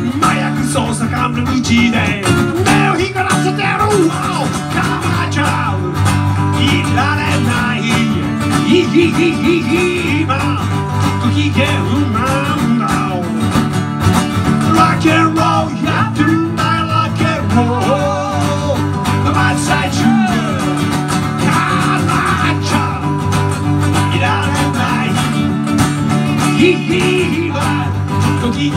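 Instrumental guitar break in a rock'n'roll song: an acoustic guitar strummed in a steady rhythm, with a second guitar playing a lead line full of bent notes over it.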